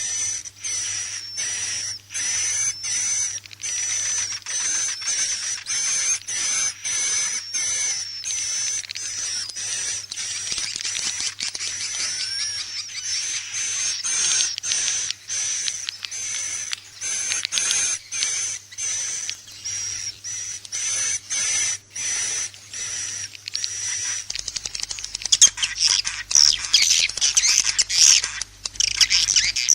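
Edible-nest swiftlet calls played as a lure: rapid, repeated high chirps in a steady pulsing stream, growing busier and louder near the end.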